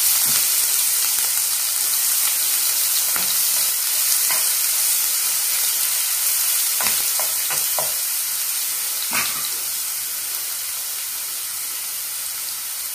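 Ginger, green chillies and whole spices sizzling in hot coconut oil in a nonstick frying pan, stirred with a spatula that gives a few light scrapes and taps on the pan. The sizzle fades gradually toward the end.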